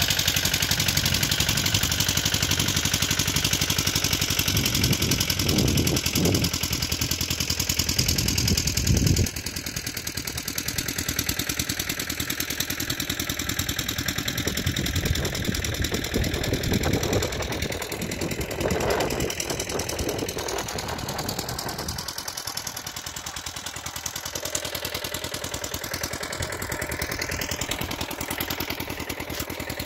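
Engine of a small two-wheel tractor (power tiller) running steadily, a little quieter from about nine seconds in.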